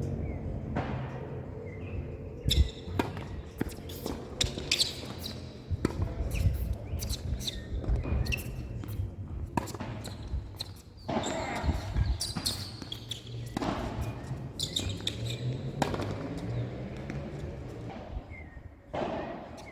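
Tennis ball knocks during play: sharp racket strikes and ball bounces on the court, irregularly spaced, with scuffing steps in between.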